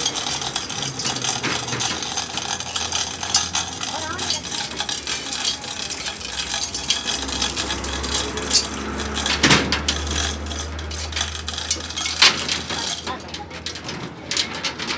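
Lifting chains clinking and rattling against a steel truck axle housing as it is lowered into a cargo cart's metal bed, with a couple of sharper metal knocks in the second half.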